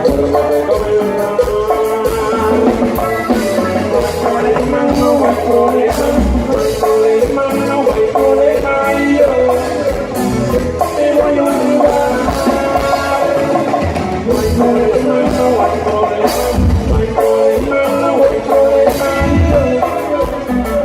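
Norteño band music with a drum kit, a mostly instrumental stretch of a song.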